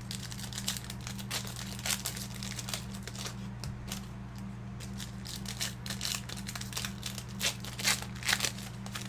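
Plastic wrapping crinkling and tearing in many short, irregular crackles as baseball card boxes and packs are unwrapped, over a steady low electrical hum.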